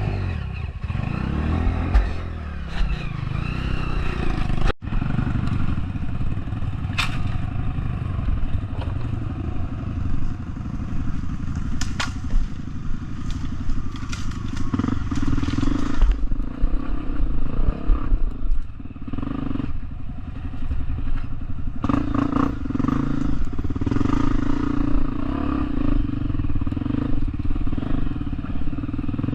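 Off-road trail motorcycle engine running under throttle, its pitch rising and falling in the first few seconds, then holding a steady drone, with scattered clattering knocks from the ride over rough ground.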